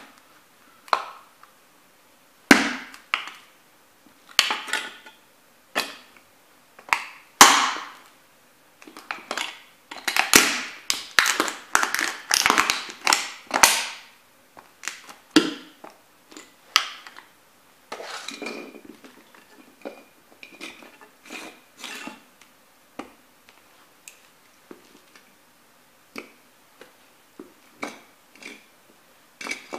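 Nike Air Max 90 sneakers stomping on and grinding a plastic and metal toy truck: a string of sharp stomps and cracks, a dense run of crunching about halfway through, then lighter clicks and scraping of the broken pieces near the end.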